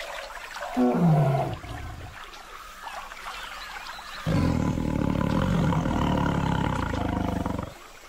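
A courting pair of Bengal tigers growling: a short growl falling in pitch about a second in, then a long, loud, low growl from about four seconds in that stops just before the end.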